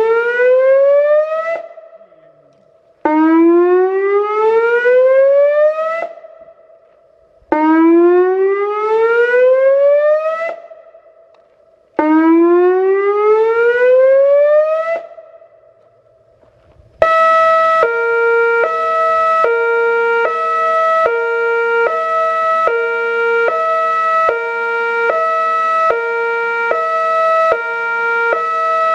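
Whelen WPS-2804 electronic outdoor warning siren sounding a whoop signal: rising sweeps of about three seconds that cut off and repeat every four and a half seconds. About seventeen seconds in it switches to a hi-lo signal, two tones alternating about every half second.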